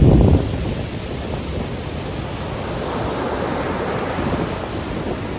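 Heavy ocean surf breaking and washing onto the beach, a steady rushing noise that swells again midway. Wind buffets the microphone with a loud low rumble right at the start.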